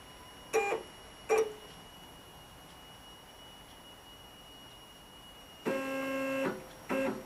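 Stepper motors on a CNC-converted benchtop milling machine jogging the table at slow jog speed to line the cutter up: two brief buzzes about a second in, then a steady buzz of nearly a second near the end, followed by one more short one.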